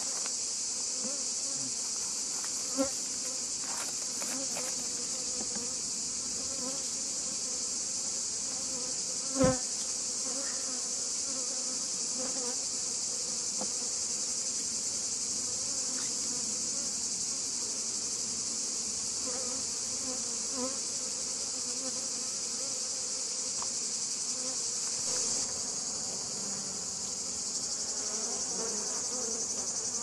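Honeybees buzzing around an open hive during a frame inspection, a wavering low hum, over a steady high-pitched drone. A sharp knock sounds once about a third of the way in.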